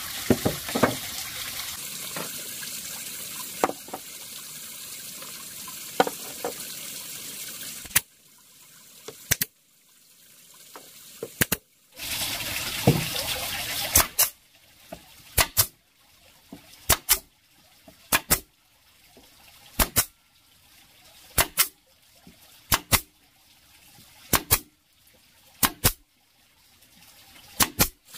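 Sharp clacks of halved bamboo pieces being set down one after another on a wooden frame, mostly in pairs about every second and a half through the second half. A steady hiss fills the first part.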